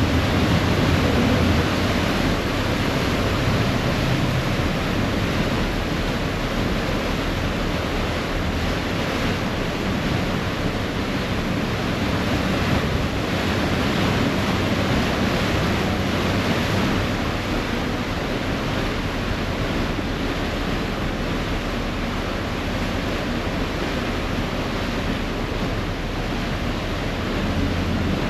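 Steady rushing and churning of a ferry's propeller wake behind the stern, over a low, steady engine hum, with wind buffeting the microphone.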